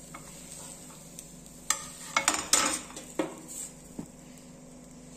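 Steel spatula clinking and scraping against an iron tawa and a steel plate as a cooked chilla is lifted off the griddle and set down, with a few sharp clinks in the middle, over a faint steady sizzle from the hot pan.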